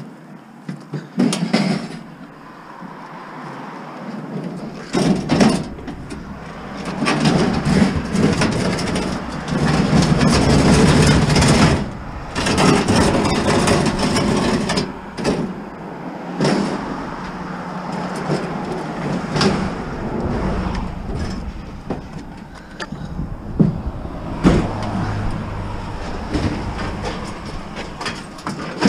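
Loaded van on the move, its engine rumble starting about five seconds in, with a load of scrap metal and appliances rattling and clanking in the back and repeated sharp knocks.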